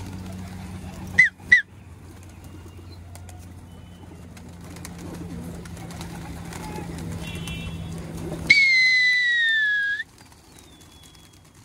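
A flock of domestic pigeons cooing and flapping their wings. There are two short high chirps about a second in, and a loud whistle held for about a second and a half near the end.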